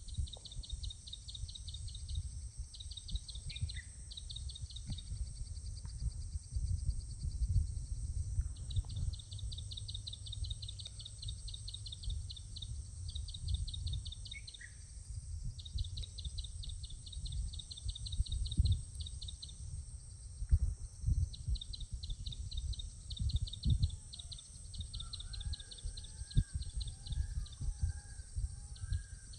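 Birds chirping outdoors: long phrases of a rapid, high trill repeat again and again, with a couple of short falling calls and, near the end, a run of lower warbling chirps. An uneven low rumble sits underneath.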